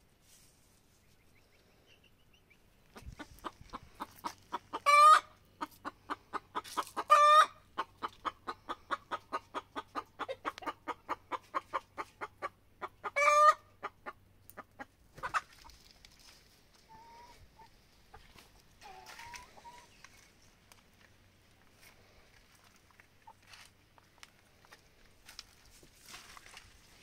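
Domestic hen cackling: a quick run of clucks broken by three loud, drawn-out squawks, stopping about halfway through and followed by a few faint short calls. This cluck-and-squawk pattern is the typical cackle a hen gives after laying an egg.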